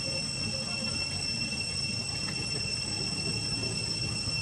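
A steady high-pitched whine holding constant tones over a continuous low rumble.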